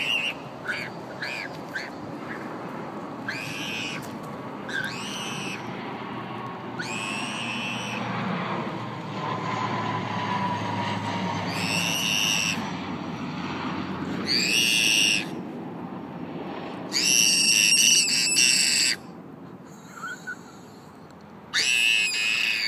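A big airplane passing overhead: a broad engine rumble that swells to its loudest about halfway through, then fades. A small child's high-pitched squeals and shouts cut in again and again on top of it, and they are the loudest sounds.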